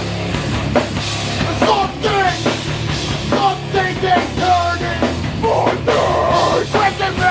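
Live hardcore punk band playing loud, with distorted guitars and pounding drums and a vocalist shouting over them.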